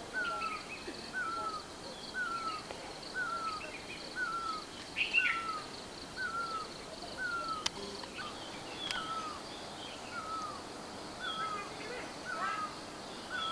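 A bird calling the same short, dipping note over and over at an even pace, about three notes every two seconds, over a steady high hiss. Other birds chirp now and then, and there is a single sharp click about eight seconds in.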